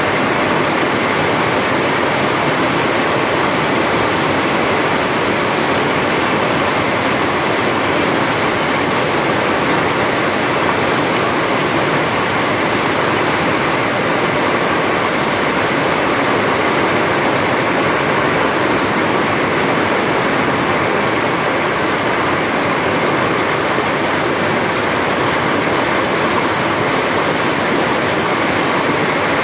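Heavy rain falling steadily: a dense, even hiss that does not change.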